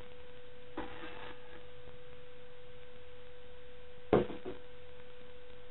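A steady electrical hum, with a faint knock about a second in and a sharper knock about four seconds in as plastic juicer parts are fitted together.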